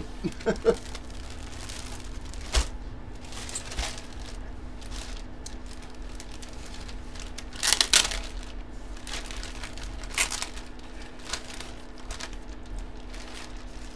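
Clear plastic bag crinkling and rustling in short, irregular bursts as a jersey is handled and pulled out of it. The loudest crinkle comes about eight seconds in.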